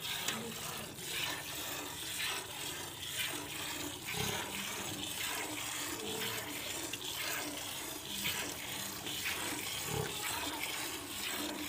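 A buffalo being milked by hand: repeated squirts of milk streaming into a steel bucket, in a steady rhythm.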